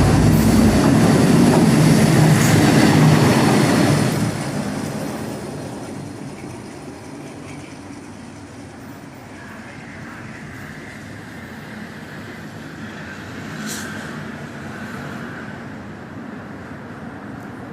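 KTM Class 23 diesel-electric locomotive passing close by: its engine runs loud for about four seconds, then fades. The train's wheels keep rolling steadily on the rails, with one sharp click about 14 seconds in.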